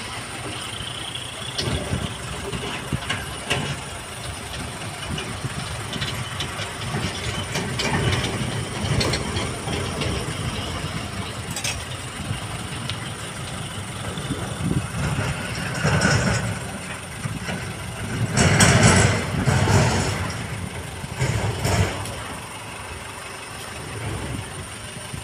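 Diesel engine of a transit concrete mixer truck running steadily, with heavy trucks on the road adding louder swells, the biggest about two-thirds of the way through.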